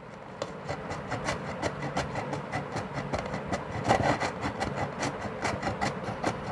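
An onion being rubbed back and forth over a stainless-steel grater, a rasping scrape with each stroke, about three strokes a second, as it is grated into fine pieces.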